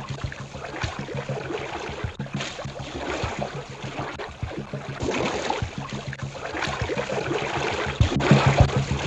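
Muffled underwater sound: bubbling and rushing water that swells and fades every couple of seconds over a low steady hum. Music with a regular beat comes in near the end.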